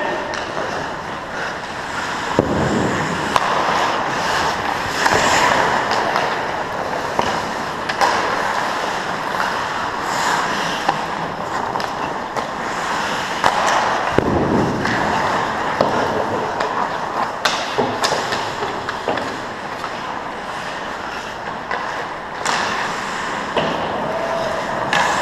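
Ice hockey play: skate blades scraping and carving the ice, with frequent sharp clacks of sticks and puck. Two longer, louder skate scrapes come about two and a half and fourteen seconds in.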